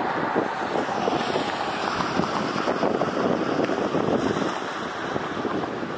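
Steady rushing noise of a Bombardier CRJ regional jet's rear-mounted engines on landing approach, mixed with wind buffeting the microphone.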